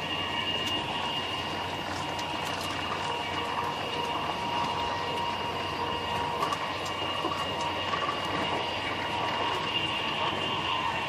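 Steady vehicle running noise: a continuous rumble and hiss with a constant high-pitched whine.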